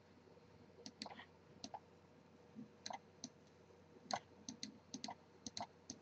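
Faint, irregular clicking of a computer mouse: a couple of dozen short clicks, starting about a second in and coming closer together in the second half.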